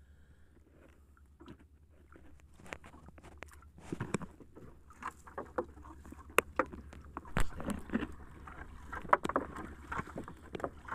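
Nylon gill net being hauled by hand over a wooden boat's gunwale: irregular rustling, scraping and knocks of net, floats and sinkers against the wood. It starts about two seconds in and grows busier and louder in the second half, over a steady low hum.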